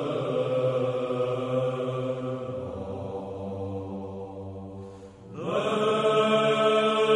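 Byzantine chant, voices holding long notes. The phrase fades about five seconds in and a new, louder phrase begins.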